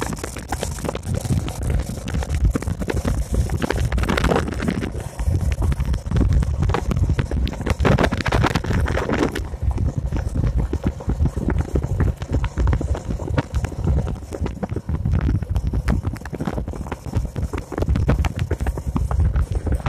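Motorcycle engine running while riding along, with wind buffeting the microphone.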